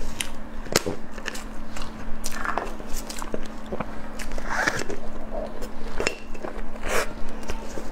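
Close-miked eating sounds: a string of sharp bites and mouth clicks with chewing and lip sounds, over a steady low hum.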